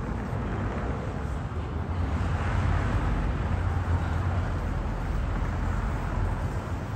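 Street traffic with a steady low rumble; a passing vehicle swells up about two seconds in and fades after about four seconds.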